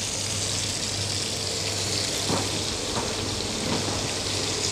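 Tomahawk steak sizzling in butter on a ridged grill pan over a portable gas stove on high heat: a steady frying hiss with a few faint pops.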